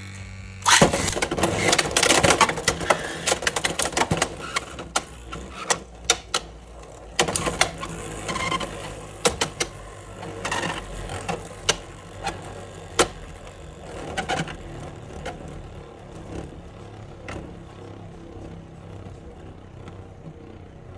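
Two Beyblade X spinning tops launched into the plastic stadium, clashing over and over with sharp clicks and clacks over the whir of their tips on the floor. The hits thin out after about fourteen seconds into a steady spinning whir as the tops settle into a stamina battle.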